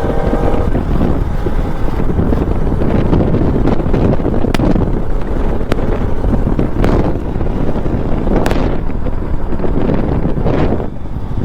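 Wind buffeting the microphone on a moving motorcycle, over the steady rumble of the engine and road. A few faint clicks and short swishes pass through the middle.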